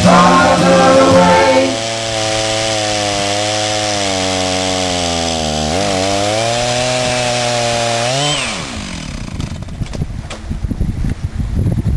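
Chainsaw cutting a birch log lengthwise in a milling cut, its engine running steadily under load with the pitch wavering slowly. About eight seconds in the revs climb briefly and then wind down as the throttle is released, followed by irregular rattling and knocking.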